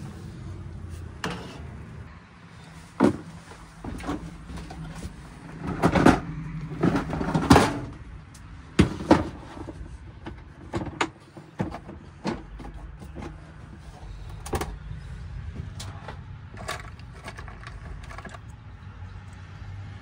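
Irregular clicks, taps and rattles of hand tools and small parts being handled while a wire connector on a heat pump's low-pressure switch is replaced. The loudest cluster comes about six to eight seconds in, over a steady low hum.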